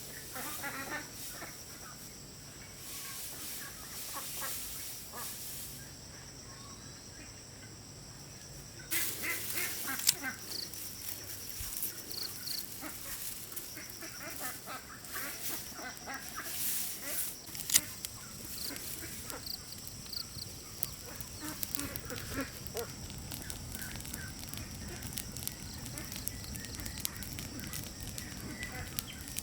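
Domestic poultry calling, with scattered clicks and knocks.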